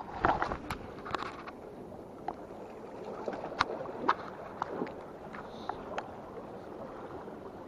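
About a dozen sharp clicks and knocks at irregular intervals, a cluster of them in the first second and a half, over a steady background rush.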